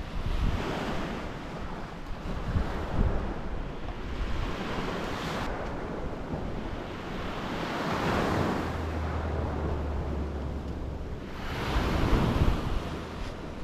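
Sea waves breaking and washing up a beach, the surf swelling and fading every few seconds, with wind rumbling on the microphone.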